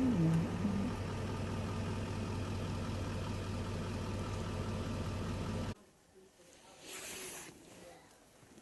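Vehicle engine running steadily, cutting off abruptly a little over halfway through, leaving quiet with a brief soft rush of noise about a second later.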